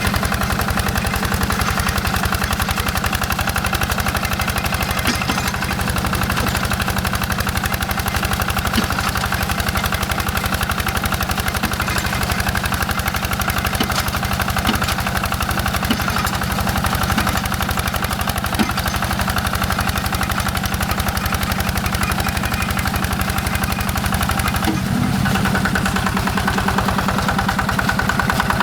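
Single-cylinder Yanmar diesel engine of a Quick G1000 hand tractor running steadily with a rapid, even chugging. About 25 seconds in, its low hum changes pitch, a shift in engine speed or load.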